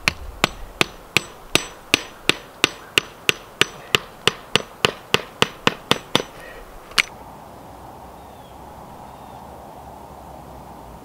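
A wooden stake pin is hammered into gravel-covered ground: about twenty quick, sharp blows, roughly three a second, then one final blow about a second later.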